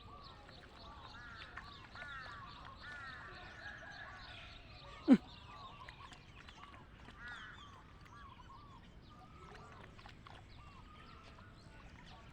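Birds calling: many short, arched calls repeating and overlapping. One brief loud sound cuts in about five seconds in.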